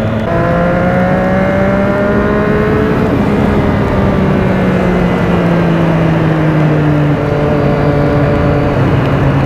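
Motorcycle engine heard from the rider's seat, dropping in pitch with a gear change just after the start, then pulling with rising revs for about three seconds before easing off and falling slowly. Wind and wet-road tyre hiss run underneath.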